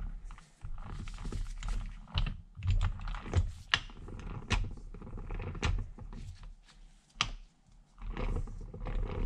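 Irregular metallic clicks and clacks as a chuck key is turned in a rusty three-jaw lathe chuck, scrolling the jaws inward, with a short lull near the end.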